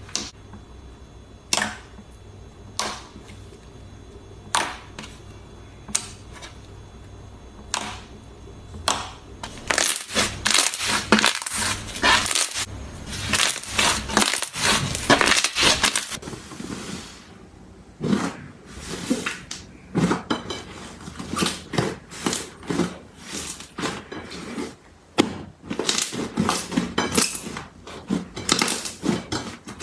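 Fingers squeezing and pressing slime, giving wet pops and crackles. Clear jelly slime pops singly about once a second at first, then crackles densely. After a short lull, a thick green slime is kneaded with fast, close-set crackling pops.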